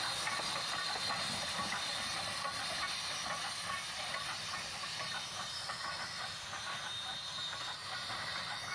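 A train going by, with a steady hissing noise over the rail sounds.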